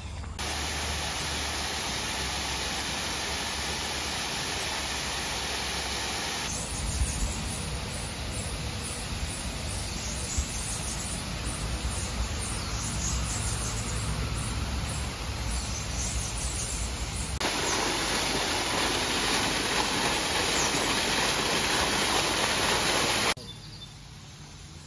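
Steady rushing, hiss-like outdoor noise with no distinct events, in several takes cut together: its character changes abruptly about six seconds in, again past the middle, and drops noticeably quieter just before the end.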